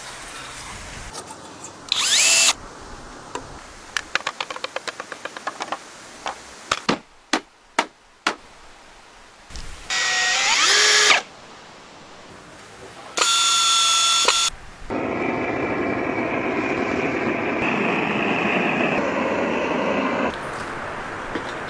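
Woodworking power tools in short edited clips: brief bursts of an electric drill whining, some rising in pitch as they spin up, a run of fast ticks and a few sharp knocks, then about five seconds of steady noisy tool work that stops near the end.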